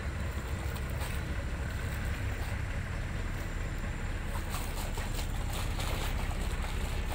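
Steady low drone of a tugboat's diesel engine as it tows a loaded coal barge along the river, with wind buffeting the microphone.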